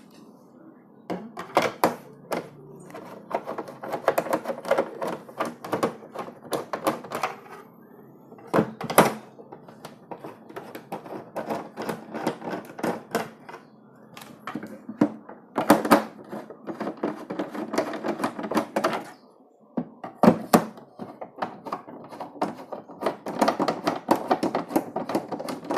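Screwdriver backing screws out of the back panel of a water purifier: long runs of rapid clicking and scraping as the screws turn, with a few sharper knocks along the way.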